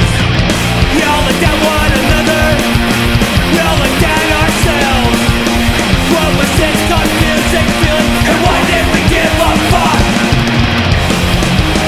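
Fast, loud punk rock song with distorted guitars and drums, laid over the video as a soundtrack.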